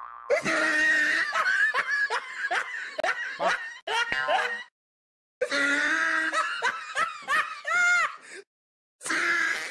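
Laughter in three stretches, each cut off suddenly into dead silence.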